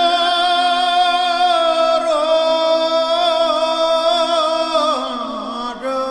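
Music: a long held vocal note with a slight waver over a steady drone, sinking away about five seconds in while the drone continues.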